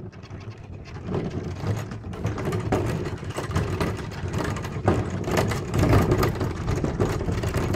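Hand-pushed load cart rolling over a dirt and gravel yard: a steady rumble from its wheels with many small knocks and rattles as it jolts.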